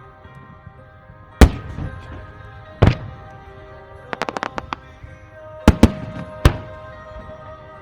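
Fireworks shells bursting over steady background music. A loud bang comes about a second and a half in and another near three seconds. A quick run of about eight small pops follows around four seconds, then three more bangs close together about six seconds in.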